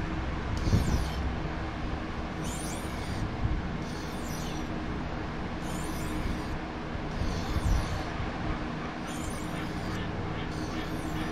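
Fillet knife blade being stroked by hand across a whetstone: short scraping hisses of steel on stone, about one a second, over a steady low hum.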